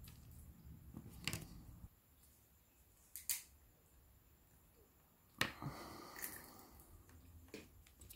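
Faint, scattered clicks and taps of a small screwdriver and fingers on an opened Samsung Galaxy A8 (2018) smartphone's frame and screws, about four in all. The sharpest comes a little past halfway and is followed by a brief rustle of handling.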